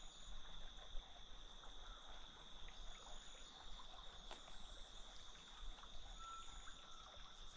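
Faint evening chorus of insects: a steady high-pitched drone, with a brief thin whistled note about six seconds in.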